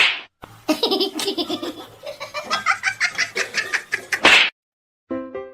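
A person laughing hard in a quick run of laughs for about four seconds. It begins with a short sharp burst and ends with a breathy burst.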